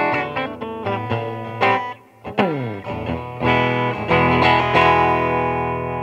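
Squier Telecaster-style electric guitar played through an amp. A quick run of picked notes is followed by a slide down in pitch about two seconds in, then a chord that is struck and left ringing.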